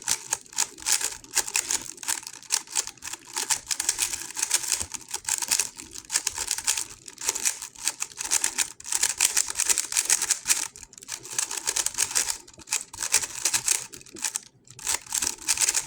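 GAN 11 M Pro magnetic 3x3 speed cube being turned fast during a solve: a dense, continuous clatter of plastic clicks from the turning layers, broken by a few brief pauses.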